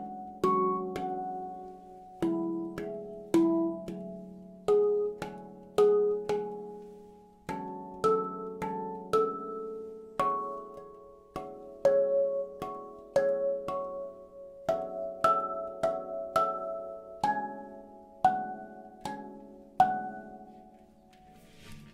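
Kosmosky 18-note handpan in F# Pygmy scale played with the fingertips: single ringing steel notes struck about two a second in a slow melody, each note sustaining and fading. The playing stops about twenty seconds in and the last notes ring out.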